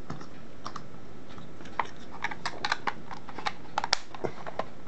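Light plastic clicks and taps from the Hickok LX303 multimeter's plastic case as it is handled and pressed on, a few at first and then a quick cluster about two to four seconds in.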